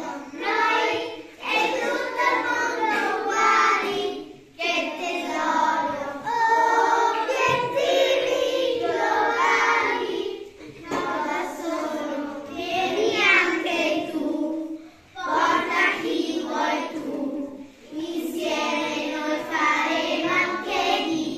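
A class of young children singing a song together in chorus, in long phrases with brief pauses between them.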